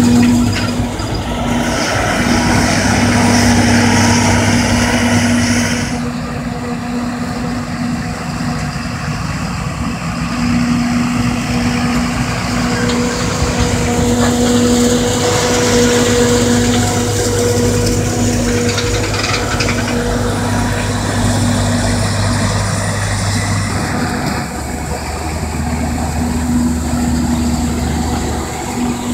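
Diesel engines of a John Deere tractor and a Claas Jaguar 870 self-propelled forage harvester running steadily under load as maize is chopped for silage and blown into a trailer. It is a steady drone with a couple of shifts in pitch along the way.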